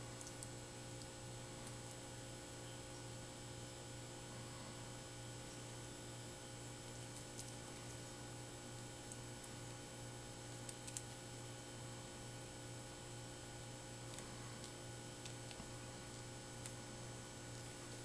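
Steady electrical hum under a few faint, scattered clicks and ticks from fingers handling a flat ribbon cable and a small plastic HDMI connector wire holder. The loudest click comes about eleven seconds in.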